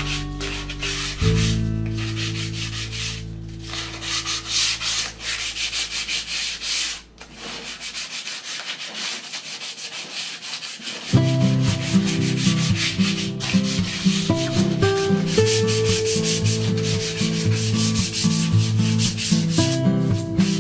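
Wood being sanded: a steady abrasive hiss, with background music of held chords underneath that grows busier about halfway through.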